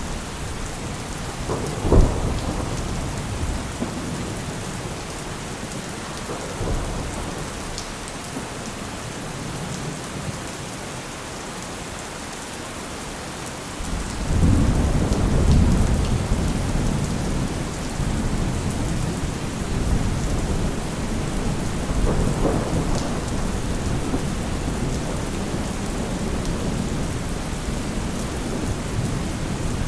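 Steady heavy rain with thunder. There is a sharp clap about two seconds in, and a long deep rumble builds about halfway through, followed by further rolling peals.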